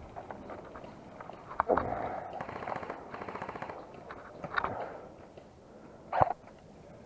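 Airsoft guns firing. The loudest is a sharp shot about a second and a half in, followed by a short rapid burst of clicking shots, then single shots near the middle and again near the end.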